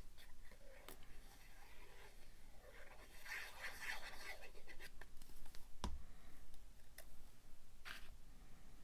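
Quiet scratching of a glue bottle's fine nozzle tip drawn over paper as liquid glue is squeezed out, then a single knock about six seconds in as the bottle is set down on the cutting mat, and a short rub of paper as a paper oval is pressed into place.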